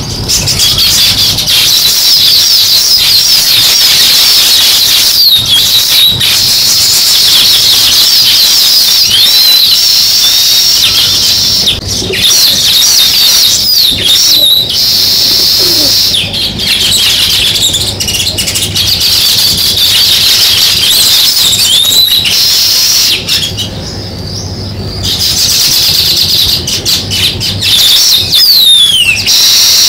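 A flock of house sparrows chirping continuously, many short high calls overlapping into a dense chorus, briefly quieter about three-quarters of the way through.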